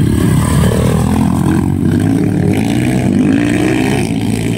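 Dirt bike engines running and revving as the bikes ride past close by, the pitch rising and falling with the throttle.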